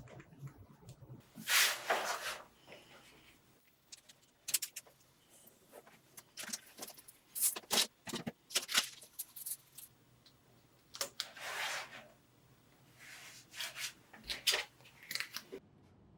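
Vinyl decal sheet and transfer tape being handled, peeled and rubbed, in irregular short scratchy bursts, the longest about a second.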